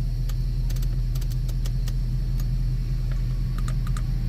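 Audi S5's 4.2 V8 idling as a steady low hum heard inside the cabin, with scattered light clicks, some in quick clusters, from the dashboard infotainment controls being pressed and turned.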